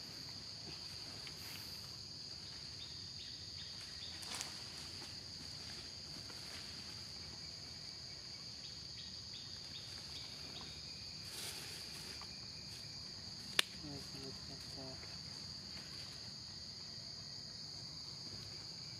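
Steady high-pitched chorus of insects shrilling without a break. A single sharp click sounds about two-thirds of the way through, with faint soft rustling here and there.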